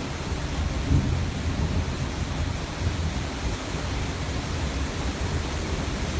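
Strong wind on a rough sea, buffeting the phone's microphone in a steady, gusty low rumble, with the wash of breaking waves beneath.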